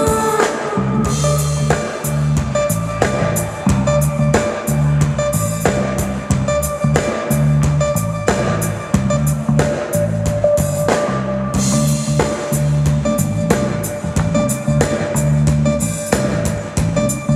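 Live band playing a song: a drum kit keeps a steady beat with kick and snare over a pulsing bass line, with electric guitar and a held keyboard note on top.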